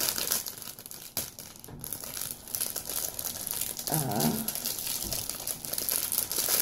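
Packaging wrap crinkling and crumpling as a candle is unwrapped by hand, a continuous irregular crackle.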